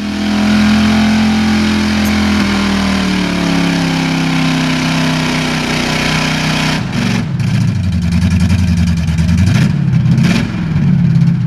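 406 cubic-inch V8 of a mud truck running flat out through a mud pit with a loud hiss, its note sagging slightly. At about seven seconds the hiss drops away and the engine note turns rough and wavers up and down. This is the run in which the engine let go and threw a rod.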